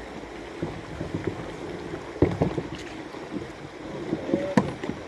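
Kayak paddling on a river: water swishing, with scattered knocks of the paddle against the hull. The sharpest knock comes near the end.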